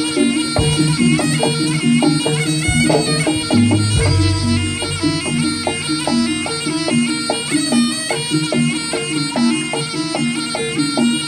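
Jaranan senterewe ensemble music. A slompret (Javanese shawm) plays a loud, wavering reed melody over regular drum strokes and repeated gong-chime notes.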